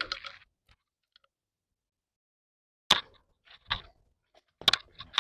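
Silence, then footsteps crunching on dry ground, about one a second, starting about three seconds in.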